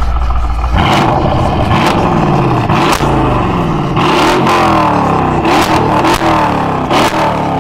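Mercedes-AMG GLE63 S's twin-turbo 5.5-litre V8 revved repeatedly from standstill through a Fi Exhaust valvetronic catback with catless downpipes, exhaust valves open. The revs rise and fall several times, with sharp pops between the revs.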